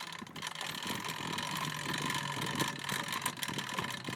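Boat-trailer winch paying out its cable: a steady mechanical hum with a scatter of small clicks.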